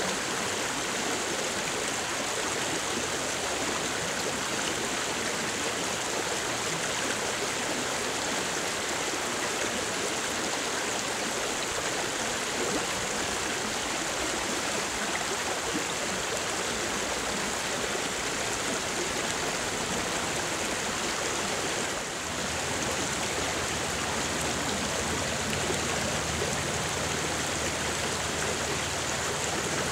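Steady rushing and rippling of a shallow creek's flowing water, with a little more low rumble from about two-thirds of the way in.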